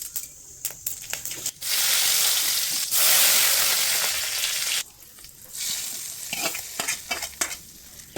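Food sizzling in hot oil in a pan, with a spoon scraping and clicking against the pan. A loud hissing sizzle starts about a second and a half in and runs for about three seconds, with a brief dip near the middle. A softer sizzle follows, with sharp clicks before and after.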